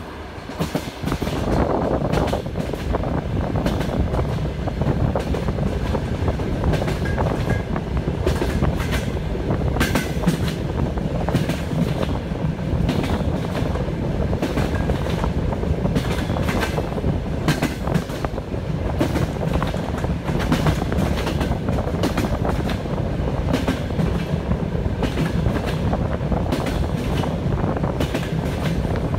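Passenger train running at speed, a steady rumble of the wheels on the rails with repeated clicking and clattering as the wheels cross rail joints.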